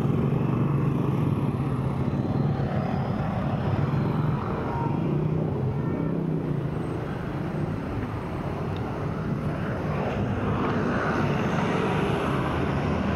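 City road traffic: motor vehicle engines running nearby with a steady low hum over the general noise of the street.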